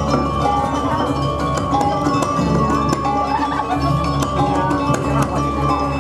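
Balinese gamelan music accompanying a Barong dance: bronze metallophones ringing out melody notes over drums and sharp metallic strikes, playing continuously.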